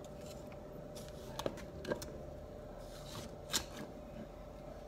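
Garden shears snipping into the soil of a potted plant: about three sharp snips with a short scrape between them, over a faint steady hum.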